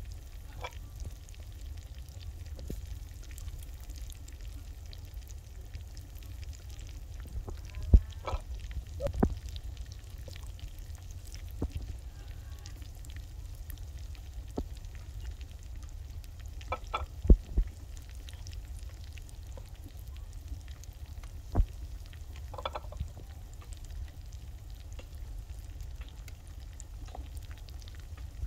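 A large enamel pot of cabbage soup boiling with a steady bubbling hiss while a metal ladle stirs it, knocking sharply against the pot a few times.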